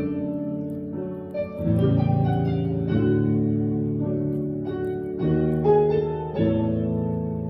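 Piano playing a slow passage of sustained chords, with a new chord struck every second or two.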